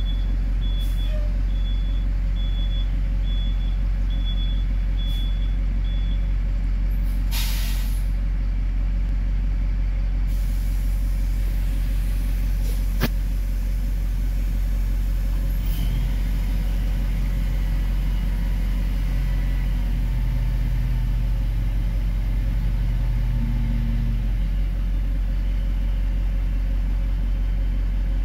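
Heavy diesel dump truck running with a steady low drone, heard from inside a car. A short series of high beeps sounds in the first few seconds, and air hisses out once about seven seconds in. From about halfway, the engine note rises and changes as the hydraulic hoist lifts the dump bed.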